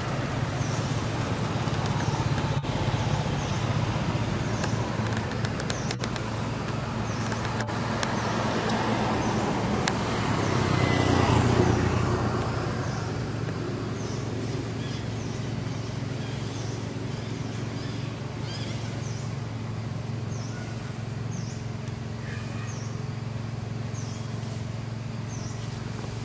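Outdoor ambience of a steady low motor hum, with a vehicle passing that grows louder about ten to twelve seconds in and then fades. Short high chirps, like a small bird's, repeat every second or two.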